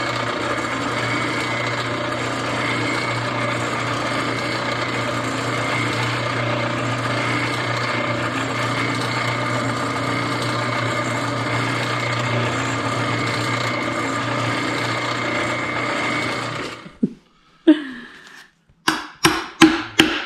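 Benchtop drill press running steadily with its bit in a rubber mudflap. It stops abruptly about 17 seconds in. Near the end a hammer strikes a hole punch several times in quick succession.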